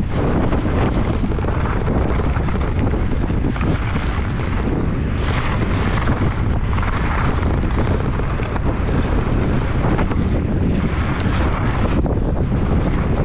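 Loud, steady wind rush buffeting a helmet or body camera's microphone on a mountain bike descending a trail, with brief louder swells now and then.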